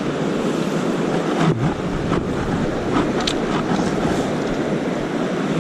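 Steady rushing noise of flowing river water mixed with wind buffeting the microphone. A few faint clicks come in the middle.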